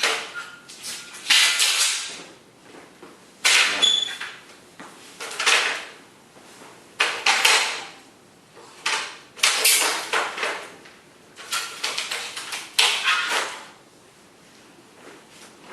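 Folding screen door's frame being knocked with a hammer to take its fitted parts off: a string of about nine clattering knocks, irregularly spaced one to two seconds apart, each with a short rattle.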